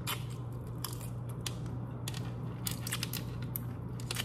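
Chewing and crunching of broiled shell-on shrimp: an irregular run of crisp crunches, over a steady low hum.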